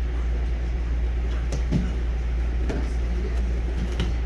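Steady low hum with scattered thuds and scuffs of students drilling takedowns on mats.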